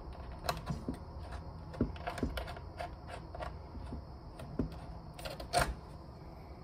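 Irregular clicks from a computer keyboard and mouse, with a few dull knocks among them; the loudest knock comes about five and a half seconds in.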